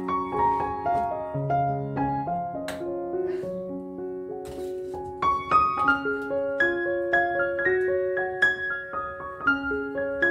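Background music: a gentle piano piece of single sustained notes over soft chords.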